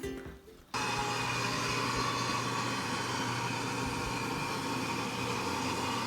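A steady motor-like whir with a low hum, starting abruptly less than a second in.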